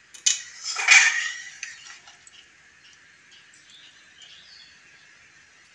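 Metal spatula knocking twice against an aluminium kadhai, the second knock louder with a short metallic ring. A faint steady hiss follows, with a few faint bird chirps.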